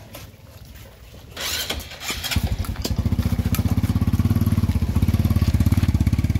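A motorcycle engine starts about two seconds in and then runs at a steady idle with a fast, even low pulse.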